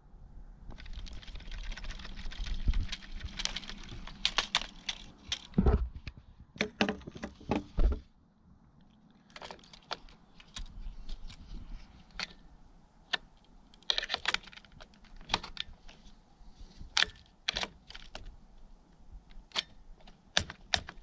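Hands handling a plastic drone and its loose gimbal camera. For the first several seconds there is a rush of rubbing noise with knocks, then scattered light plastic clicks as the gimbal is pushed against its mount.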